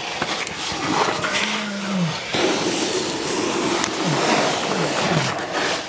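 Backpack scraping and rubbing against the sandstone walls of a narrow slot canyon: a continuous rough scraping with scattered knocks.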